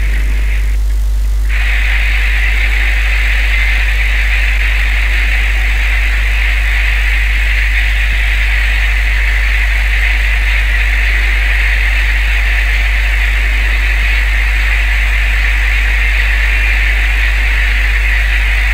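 Small boat's engine running steadily under way: a loud, even low drone with a steady hiss over it that drops out for a moment about a second in.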